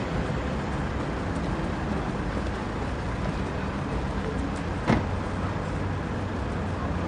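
Car park ambience: a steady low hum of car engines and traffic, with one sharp knock about five seconds in.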